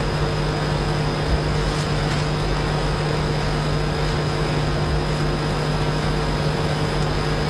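Steady background hum and hiss with a constant low drone and a faint high whine, unchanging throughout.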